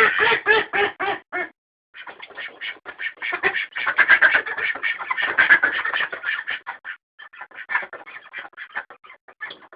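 Domestic ducks quacking in quick runs of short calls, several a second: a steady series for the first second and a half, a brief pause, then a denser overlapping stretch that thins to scattered quacks near the end.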